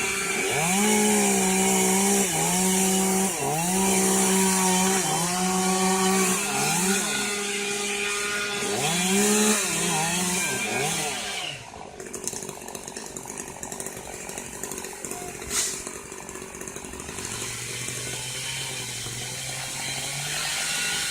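Chainsaw cutting eucalyptus wood, its engine at full throttle and dipping and recovering repeatedly as the chain bites. About 12 seconds in the saw stops, leaving a quieter low engine hum.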